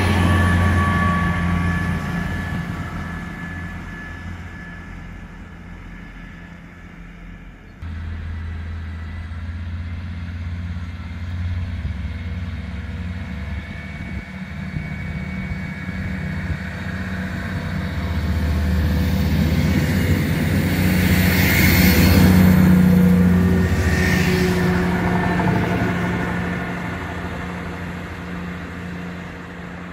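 A train fading away over the first few seconds. Then a Class 158 diesel multiple unit's engines hum as it comes through, growing louder with a brighter hiss about two-thirds of the way in and dying away as it pulls off.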